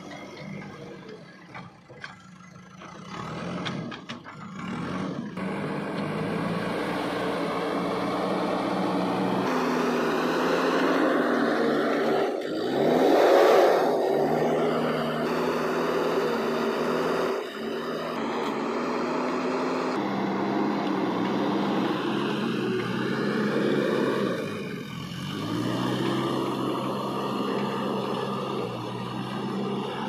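JCB 3DX backhoe loader's diesel engine working under load as the front loader bucket pushes soil. The engine revs up and is loudest about halfway through, then dips and picks up again a little past two thirds.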